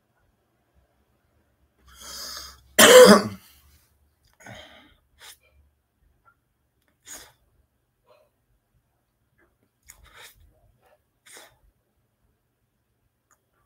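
A man's loud cough while smoking a cigarette, a single harsh burst about three seconds in, just after a breathy intake. A few short, faint breaths follow.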